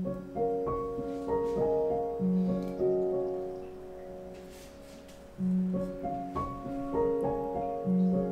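Background piano music: a short melodic phrase of held notes that starts over about five seconds in.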